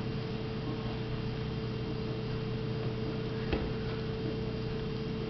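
Steady electrical hum, with a single sharp click about three and a half seconds in.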